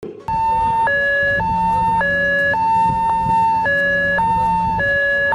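Two-tone ambulance siren, starting suddenly and alternating between a lower and a higher note about every half second.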